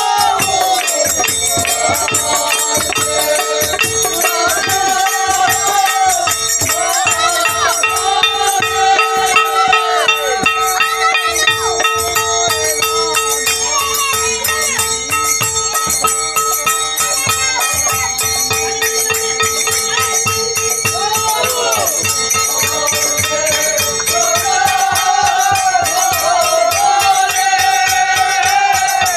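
A group of men singing together to a khol, the two-headed barrel drum of Bengali devotional song, with ringing hand cymbals and hand claps keeping a quick, steady beat.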